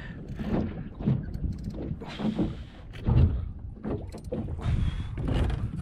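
Wind rumbling on the microphone, with irregular knocks and splashes of waves slapping against a small boat's hull, one louder thump about three seconds in.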